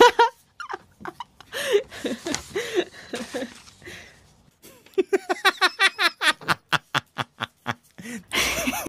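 A person laughing: scattered laughs, then from about five seconds in a fast run of short 'ha' bursts, about four to five a second, ending in a breathy burst near the end.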